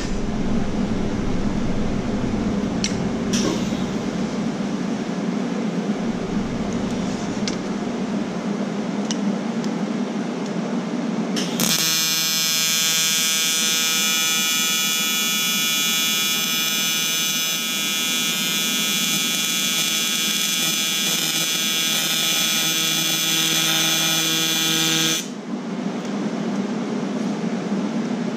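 AC TIG welding arc on aluminium diamond plate: a steady, high, buzzing hum that starts about 12 seconds in, holds for about 13 seconds and cuts off suddenly. Before and after it, a steady rushing background noise.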